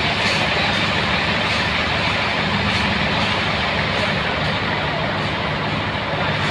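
Sawmill running steadily while sawing a large trembesi (rain tree) log: a constant machine drone with the hiss of the blade cutting through the wood over it.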